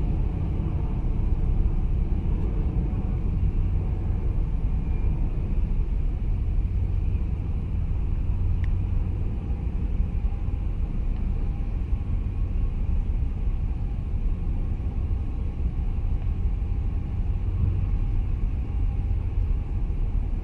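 Wind buffeting the microphone: a steady, uneven low rumble, with a faint steady hum above it.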